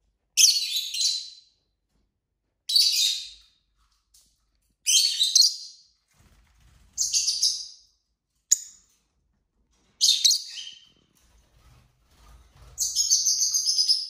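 Lovebird chirping in seven bursts of high-pitched calls, about two seconds apart, the last one longer.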